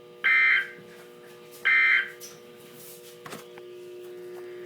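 Two short bursts of Emergency Alert System digital data, the harsh buzzing end-of-message code, about a second and a half apart, each lasting under half a second. They close out the warning. A steady low hum runs underneath, and a click comes about three seconds in.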